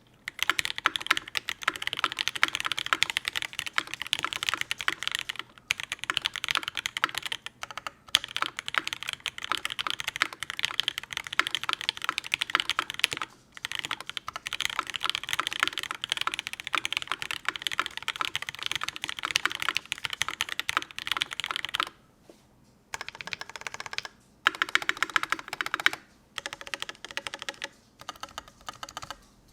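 Typing on a Kyuu custom mechanical keyboard with lubed C³ Tangerine R2 linear switches in UHMWPE housings, a brass plate with no foam, and GMK keycaps. Fast, continuous keystrokes with a few brief pauses, thinning to slower, scattered strokes near the end.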